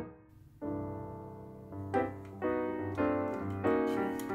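Background piano music: a simple melody of single notes, starting about half a second in.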